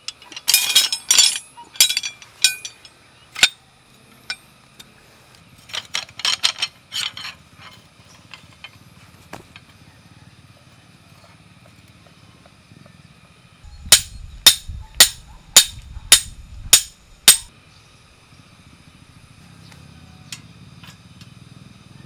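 Steel parts of a campfire grill (stake, swing arm and wire grate) clinking and knocking together as it is put together. A little past the middle comes a run of eight sharp knocks, about two a second, each with a dull thud under it.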